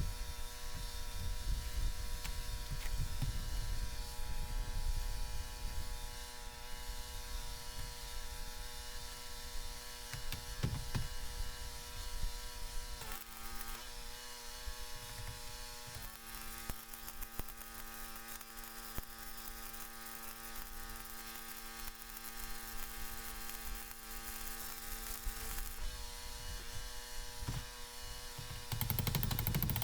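A welding machine hums steadily, its pitch shifting as a 5/32-inch E7018 stick electrode is struck. About halfway through, a steady crackle of the welding arc runs for about ten seconds, then stops, and the hum settles again.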